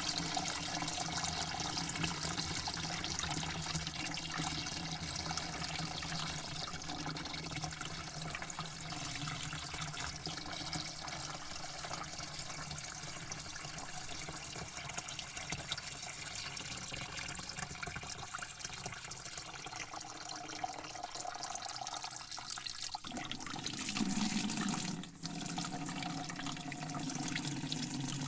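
Running water flowing steadily, with no speech. About 23 seconds in the flow sound changes, briefly getting louder and dropping out for a moment before steadying again.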